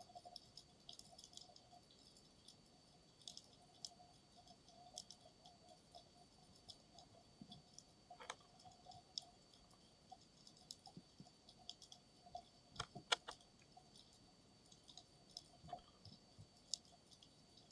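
Near-silent underwater ambience picked up by a camera in a waterproof dive case: scattered faint clicks and crackles, a few of them sharper, about 8 and 13 seconds in, over a faint steady high tone.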